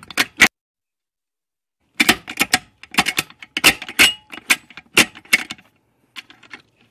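Hand ratchet on a long extension clicking as bolts inside a manual transmission's shift-mechanism housing are run down. A couple of clicks come first, then a dead gap of over a second, then a run of irregular clicks with a light metallic clink that thins out near the end.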